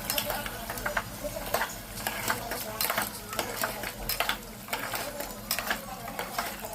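Chicken curry being stirred in a pan with a metal spoon or spatula: irregular scrapes and clinks against the pan over the sizzle of the frying masala.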